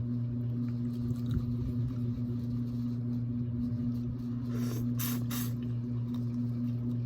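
A steady low hum underneath, with a few short wet eating noises about five seconds in as seafood is eaten by mouth.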